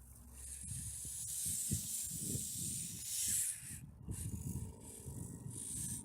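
Wind buffeting the microphone in uneven gusts, over the small electric motor and geared drivetrain of a 1/24-scale rock crawler working through running water, with a high hiss for the first three seconds or so.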